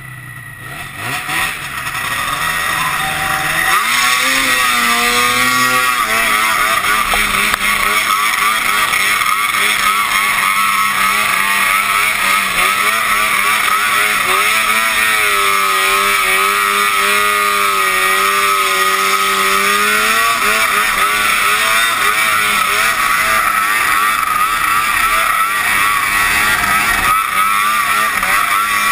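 Snowmobile engine revving up over the first few seconds, then held at high revs with a wavering pitch as the sled skims across open water, over a steady hiss of wind and spray. The owner says the sled was running badly.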